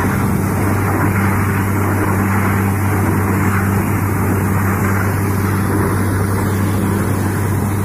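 Borewell drilling rig running steadily: a constant engine drone under the rush of compressed air blowing water and mud up out of the borehole, the sign that the bore has struck water.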